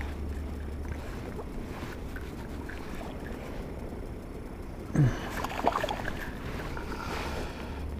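A hooked fish splashing and thrashing at the water's surface for about two seconds, starting suddenly about five seconds in, over a steady low background rumble.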